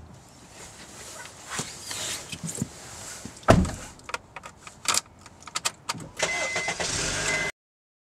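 Someone getting into a car: rustling and clunks, a heavy car-door thud about three and a half seconds in, then a run of sharp clicks. Near the end there is a loud steady stretch with a thin high chime-like tone, which fits the car's engine being started, and it cuts off abruptly.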